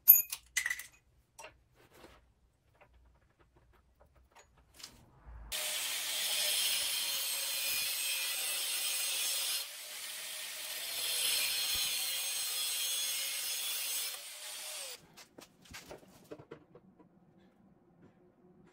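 Corded angle grinder grinding metal: it starts about five seconds in, runs steadily for about nine seconds with a brief easing near the middle, then spins down. A few light knocks of handling come before it.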